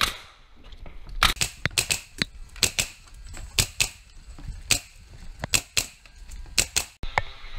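Pneumatic nail gun firing about sixteen sharp bangs in quick, irregular succession, often two close together, as nails are driven into wood.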